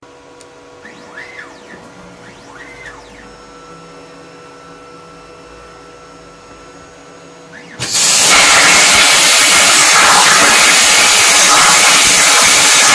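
A CNC plasma torch fires about eight seconds in and cuts steel plate with a loud, steady hiss. Before that, the machine's stepper motors whine faintly a few times, rising and falling in pitch, then hold a steady tone while the torch is positioned over the sheet.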